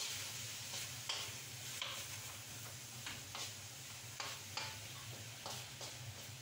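Pumpkin and long beans sizzling steadily in a wok as they stir-fry, with a utensil scraping and clicking against the pan about eight times.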